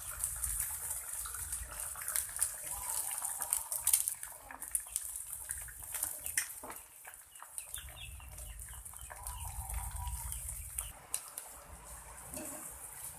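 Egg frying in margarine in a pan, a steady sizzle with frequent sharp crackles and pops. A chicken clucks a few times in the background.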